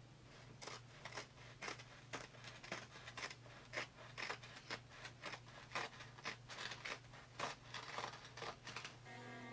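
Orange-handled scissors snipping through a sheet of canvas, cutting it to size for stretching: a quick series of short snips, about two to three a second, over a faint steady hum.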